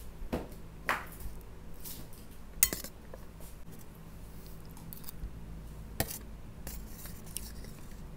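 Steel spoon clinking and scraping on a stainless steel thali while eating, in a few scattered taps. The sharpest clink comes about two and a half seconds in.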